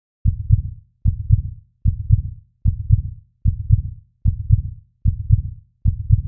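Heartbeat: steady deep double beats, lub-dub, about 75 a minute.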